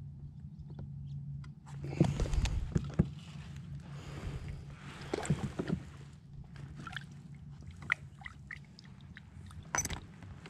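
Irregular knocks, bumps and rustling from gear being handled on a plastic fishing kayak's deck as a measuring board and phone are moved around. There is a cluster of sharp clatters about two seconds in and another near the end.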